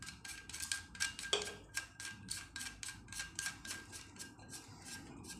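A plastic nut being twisted by hand onto a threaded fitting on a toilet part, giving a quick run of small clicks, about four or five a second.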